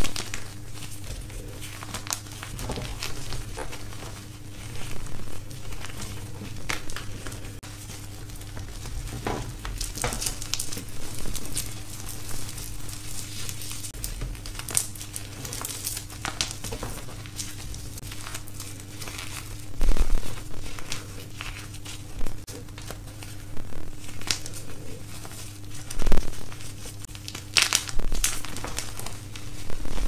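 Hands crushing and crumbling blocks of dyed gym chalk: a continuous run of dry crackling crunches, with a few louder crunches as chunks break, over a faint steady low hum.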